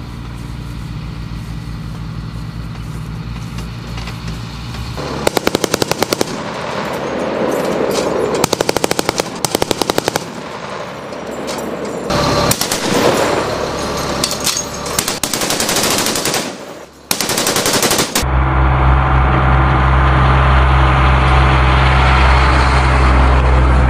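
A vehicle-mounted machine gun firing blanks in several short bursts of about a second each. The bursts are set between the steady running of a military truck's engine, which is heard at the start and again, louder and close up, over the last few seconds.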